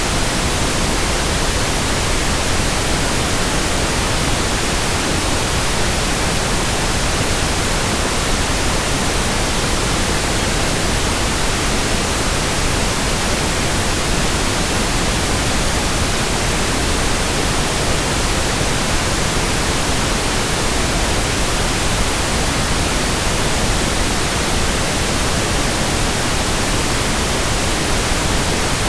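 Steady pink noise, an even hiss that does not change.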